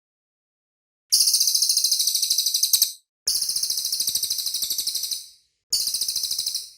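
Cililin songbird singing rapid, high-pitched trills: three bursts of quick repeated notes, each one to two seconds long, with short gaps between them, the first starting about a second in.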